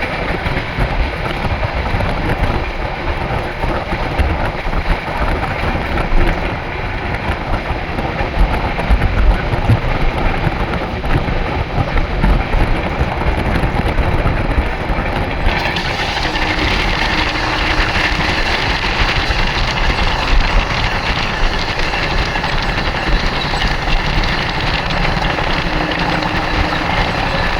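Dakshin Express passenger train running on the track: a steady rumble and rattle of wheels on rails, which turns brighter and hissier about halfway through.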